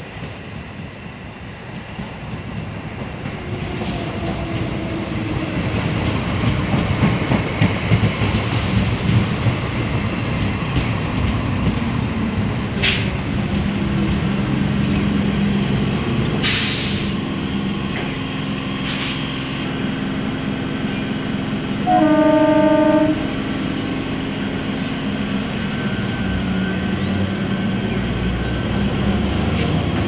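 Indian Railways electric multiple unit (EMU) local train running past on the rails with a steady rumble that grows louder at the start. A few brief sharp high-pitched sounds come through it, and about two-thirds of the way in the train's horn sounds once for about a second.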